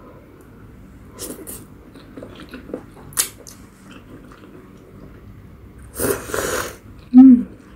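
A person slurping and chewing spicy instant ramen noodles, close to the microphone. There are short slurps about a second in and around three seconds, a longer slurp around six seconds, and near the end a brief, loud, low sound that drops in pitch.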